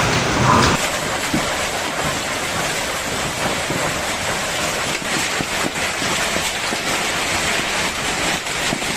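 Heavy storm rain pelting hard surfaces: a dense, steady hiss made of many small hits. A lower rumble under it stops abruptly just under a second in.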